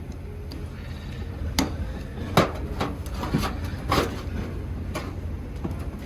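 Scattered metal knocks and clinks, about six, the loudest about two and a half seconds in, from rear drum-brake parts being handled and fitted back on. A steady low hum runs underneath.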